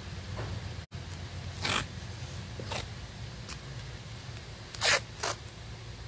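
Masking tape being pulled off the roll and stuck down, a handful of short zipping rips. The loudest two come close together about five seconds in.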